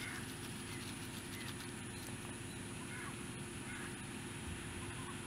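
Faint honking of geese a few times, at the start and again about three seconds in, over a steady low background rumble.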